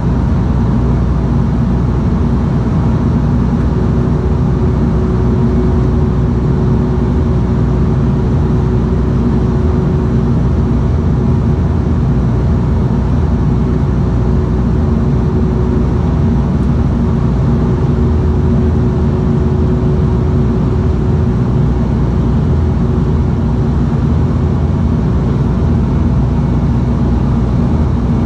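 Cabin noise of a Bombardier Dash 8-Q200 in flight: the steady drone of its Pratt & Whitney PW123 turboprop engines and propellers, heard from a seat beside the propeller, a low rumble with several steady humming tones in it.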